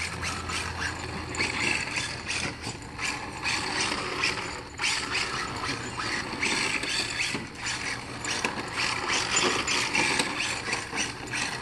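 Electric RC drift car's motor and gears whirring, rising and falling again and again as the car is driven back and forth and spun around.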